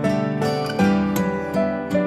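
Background music of plucked strings, notes struck every half second or so.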